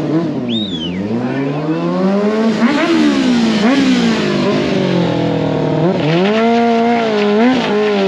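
Sport bike engine revved hard over and over, its pitch sweeping up and falling back several times, then held high and steady for about a second and a half around six seconds in before dropping and rising again.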